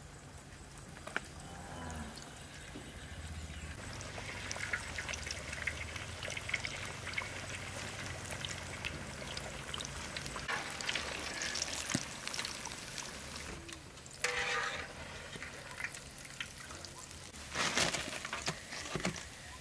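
Crackling sizzle of battered vegetable fritters deep-frying in a wok of hot oil. Near the end come a few louder crunches as a knife cuts through the crisp fried fritters.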